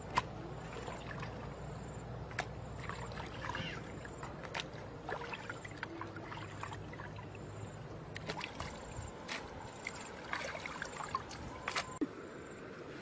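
Water trickling and splashing as skinned frogs are handled in a plastic colander, with scattered sharp clicks and knocks from the basket and basin. A low rumble underneath fades about nine seconds in.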